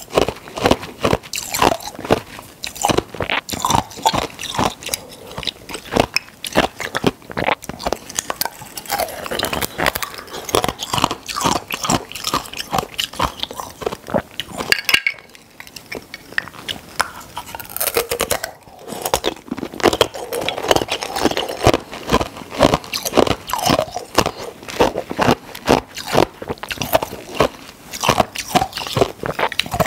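Ice being bitten and chewed close to the microphone: a dense run of sharp crunching cracks, with a brief lull about halfway through.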